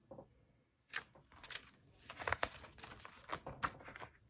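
Paper pages of a hardcover picture book being turned and handled: a run of soft rustles and crinkles starting about a second in.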